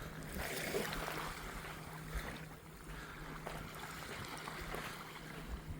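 A steady low motor hum over a faint, even wash of background noise.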